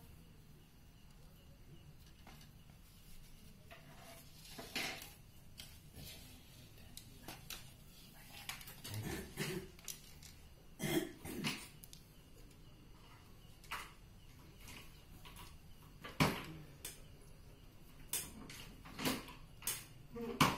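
Scattered clicks, taps and light knocks of hands fitting a cord and its small plastic clips onto a wooden-framed, wire-barred racing-pigeon cage. There is a sharp click about sixteen seconds in and a quick cluster of knocks near the end.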